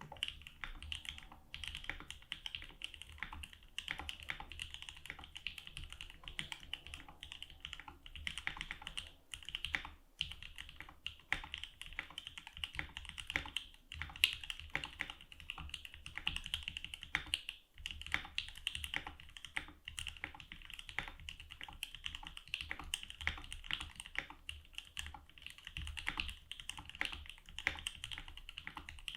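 Fast continuous typing on a 60% mechanical keyboard with JWK Durock L3 linear switches, lubed with Krytox 205g0 and filmed: a dense run of key clacks with a bright, poppy top.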